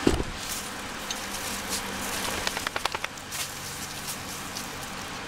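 Wood fire burning in a Solo Stove wood-burning camp stove, a steady rush with sharp crackles and a quick run of clicks about two and a half seconds in. A thump right at the start.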